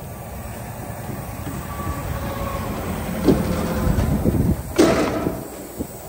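Highway traffic rushing past the shoulder, a low rumble that swells in the middle, with a sharp knock about three seconds in and a louder bang near the end.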